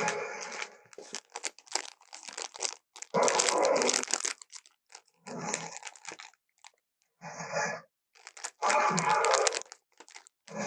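Custom-made Spinosaurus creature sound effect, layered from animal and dinosaur film recordings: scattered clicking and crackling at first, then four short harsh growls with pauses between them.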